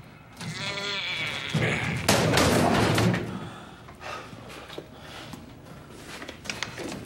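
A heavy wooden desk being shoved into a doorway: a brief strained groan, then about two seconds in a loud thump and a scrape lasting about a second as the desk jams against the door frame. Fainter knocks follow.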